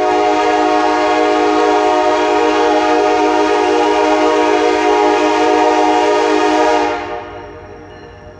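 CN diesel locomotive's air horn sounding one long, loud blast, several notes at once in a chord, that cuts off about seven seconds in.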